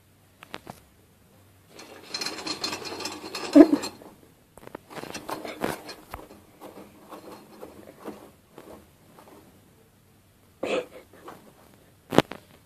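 Cat pawing and digging in litter in a plastic tray: bursts of gritty scratching and rustling, loudest a little over three seconds in, then scattered scraping, with two sharp knocks on the tray near the end.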